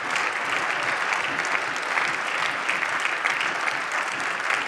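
Applause from members of a parliamentary chamber: many hands clapping steadily, without a break.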